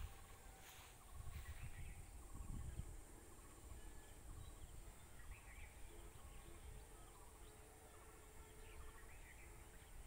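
Faint rural outdoor ambience: scattered small bird chirps over a steady high insect drone, with low rumbles about one to three seconds in.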